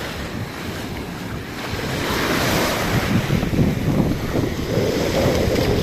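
Sea waves washing onto the shore, with wind buffeting the microphone.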